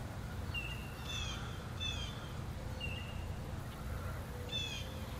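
Birds calling: a handful of short, harsh, chirping calls, several of them in quick falling pairs, over a steady low rumble.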